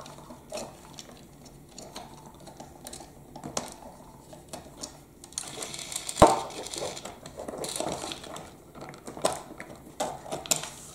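Hands dismantling a plastic toy telehandler: scattered small clicks, rattles and rustling of plastic parts and wires, with one sharp knock about six seconds in, the loudest sound.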